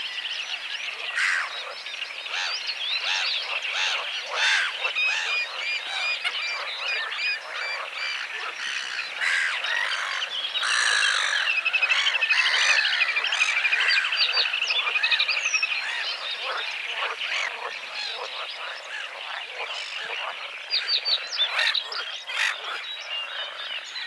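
Little grebe trilling: a fast, wavering trill, loudest around the middle, over a dense chorus of short calls from the marsh.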